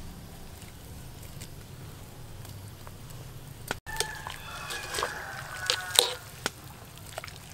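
Wire-mesh skimmer stirring and skimming a pot of boiling water, clinking and scraping against the aluminium pot with short ringing metallic clinks in the second half, over water sloshing. Before that there is only a faint steady sound of the pot boiling.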